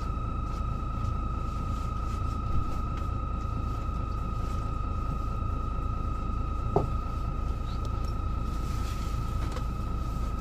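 Mercedes-Benz O407 city bus with a ZF Ecomat automatic gearbox running steadily on the road, heard from inside: a low diesel rumble with a steady high whine over it. A small click comes about two and a half seconds in and a short knock about seven seconds in.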